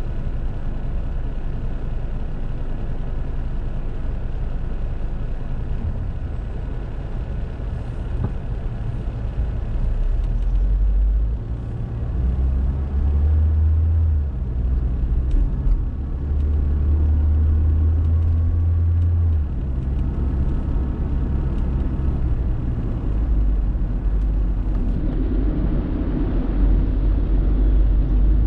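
Car engine and road noise heard from inside the cabin: a steady low rumble, stronger from about ten seconds in as the car pulls away from a standstill and drives on.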